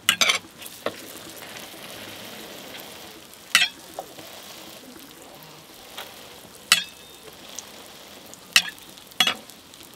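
Hotteok frying in oil on a flat-top griddle, a steady sizzle, with about half a dozen sharp metallic clacks of the steel hotteok press and other metal tools against the griddle.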